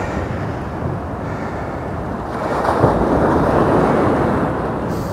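Sea surf washing on the beach, with wind on the microphone. A wave surges louder about halfway through, with a brief knock near its start.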